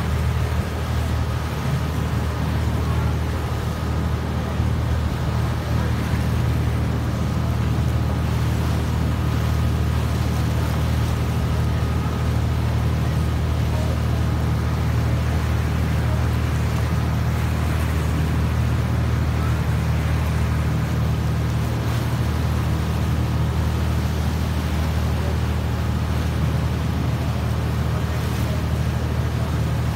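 Tour boat's engine running steadily, a deep, even drone, with the wash of choppy river water.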